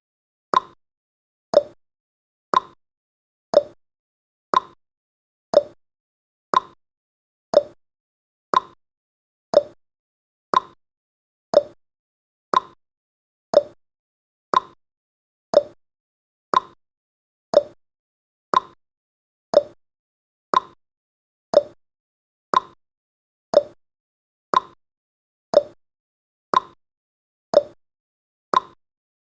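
Countdown timer's clock-tick sound effect: a short, sharp tick about once a second, steady throughout.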